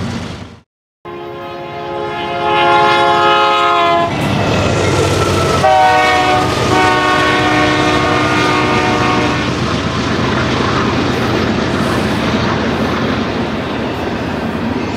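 BNSF freight locomotives' multi-chime air horn sounding two long blasts, the second starting with a drop in pitch as the locomotives pass. The rumble and wheel clatter of the double-stack intermodal cars rolling by follows.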